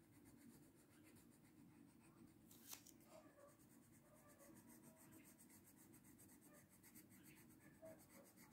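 Faint scratching of a coloured pencil on a colouring-book page in repeated short strokes, with one small click a little under three seconds in.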